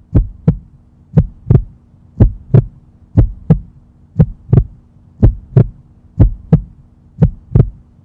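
Heartbeat sound effect: deep paired lub-dub thumps, one pair about every second, over a faint steady hum.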